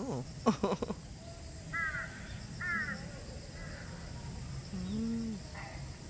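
Crows cawing in a tree: a loud, harsh call in the first second, then short, quieter caws about two and three seconds in.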